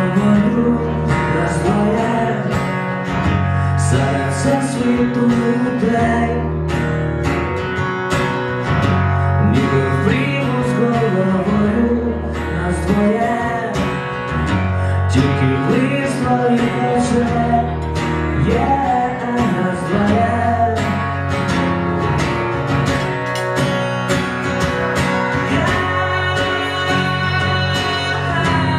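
Acoustic guitar strummed in a steady rhythm with a man singing over it, a live solo performance.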